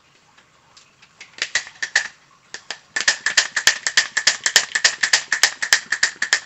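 Small bicycle hand pump inflating a freshly patched inner tube, with quick short strokes that each give a sharp puff of air. A few strokes come first, then a fast steady pumping from about three seconds in.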